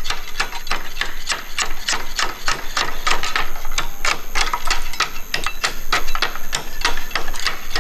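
Slater's hammer chopping the edge of a roofing slate held across an iron slater's stake: quick, even cracking strikes, about four a second.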